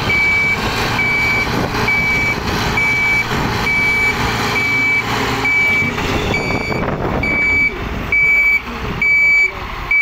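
A heavy-machine backup alarm beeping steadily, about three beeps every two seconds, louder for the last few beeps, over the rumble of an excavator's and a Caterpillar motor grader's diesel engines working as the excavator pushes the grader, which is stuck in mud.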